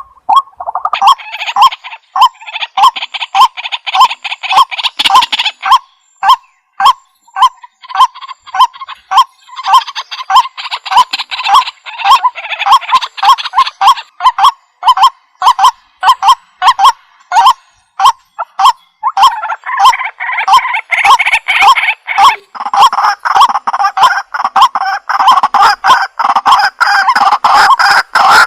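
White-breasted waterhen calling: a loud, monotonous series of repeated notes at about two to three a second. Denser, harsher chattering calls break in over the top several times and run together into a continuous chorus near the end.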